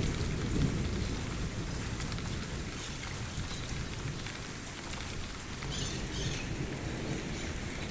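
Steady rain falling, the tail of a hailstorm that has turned to plain rain, with a low rumble underneath.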